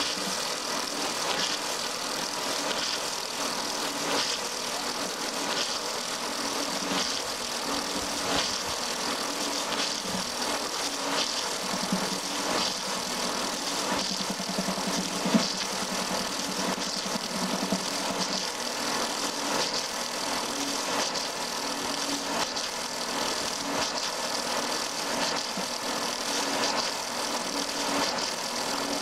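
Electric log-rounding lathe running, its cutter head shaving a spinning log into a round pole: a steady mechanical clatter with frequent short knocks as the blades bite the wood. A low hum strengthens for a few seconds in the middle, with one louder knock about halfway through.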